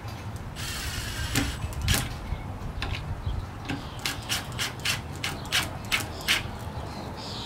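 Cordless drill driving a screw into a wooden birdhouse: a short run of the drill about a second in, then a string of sharp clicks about four a second.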